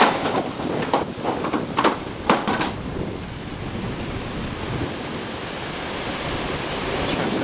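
Hurricane Sandy's storm wind rushing steadily, buffeting the microphone, with a few sharp knocks in the first three seconds.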